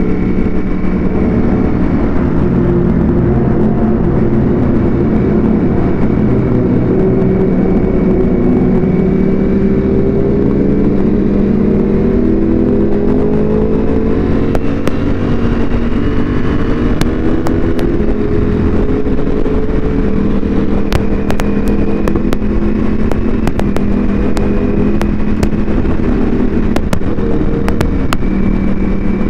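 Ducati Panigale V4 superbike with a Termignoni exhaust, heard from the rider's seat: its V4 engine runs steadily while cruising, the pitch climbing slowly partway through and then holding, over a constant rush of wind noise.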